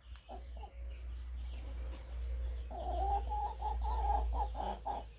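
Chickens clucking: a couple of short clucks near the start, then a quick run of clucks in the second half, over a low steady rumble.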